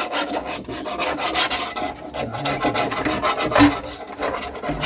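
Quick, repeated scraping strokes of a tool rubbing against the sink around the drain opening, clearing off old plumber's putty.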